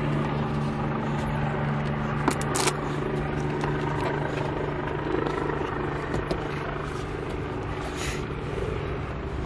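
A steady low mechanical drone, with a few sharp light clicks of parts being handled, the loudest about two and a half seconds in.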